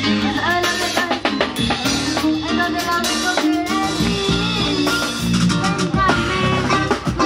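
Live band playing an upbeat instrumental passage of a Latin dance song, with drum kit, percussion and electric guitars driving a steady beat under a bright melody.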